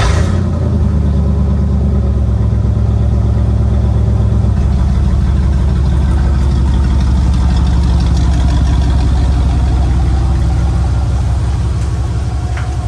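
Engine of a 1988–98 body-style Chevrolet pickup running loud and steady at idle, with a deep, heavy low end. Its tone shifts slightly about four seconds in.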